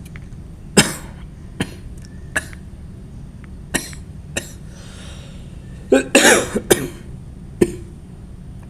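A man coughing: single short coughs a second or so apart, then a fit of several coughs in quick succession about six seconds in, and one more near the end.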